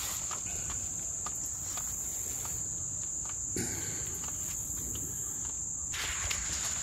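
Insects chirring in a steady high-pitched drone, with a few faint clicks. A short rustle of noise comes in near the end.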